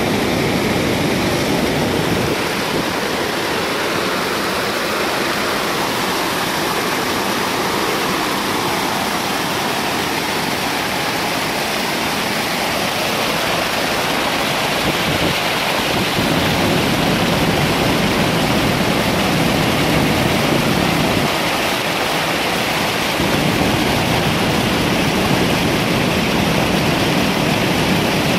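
Floodwater pouring over the crest of a concrete dam weir and splashing into the water below: a steady, loud rush that grows fuller in the low end about halfway through.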